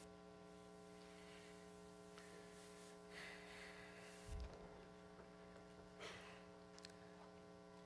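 Near silence with a steady electrical mains hum, and one faint low thump about four seconds in.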